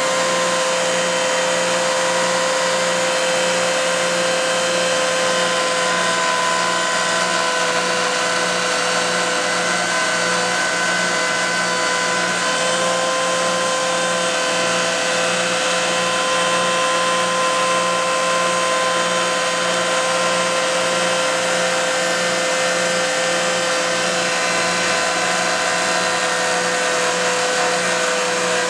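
Router spindle motor of a CNC milling attachment running with a steady high whine while it mills a barley twist into walnut, the pitch holding constant throughout.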